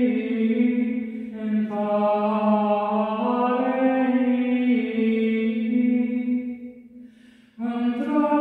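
A woman's wordless intuitive singing: long held vocal tones that step from note to note over a steady low drone. The voice fades out about six and a half seconds in and comes back after a short pause.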